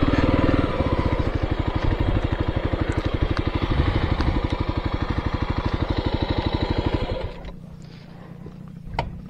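Motorcycle engine running at low speed off-road, its firing coming as a rapid, even beat. About seven seconds in the engine sound drops away sharply, leaving a low hum, and a sharp click follows a little later.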